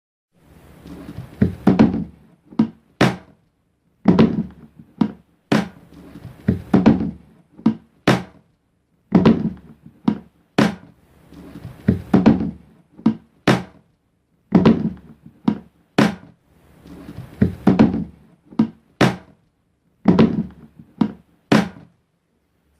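A container lid being opened and shut over and over, about eight times: each time a short scraping rub ends in two or three sharp clicks and thunks.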